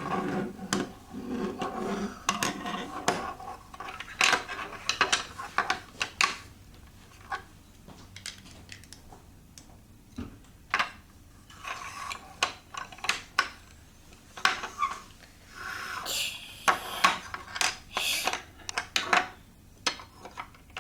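Plastic LEGO Duplo bricks clattering and clicking as they are handled and pressed together, in scattered runs of sharp knocks with short pauses between.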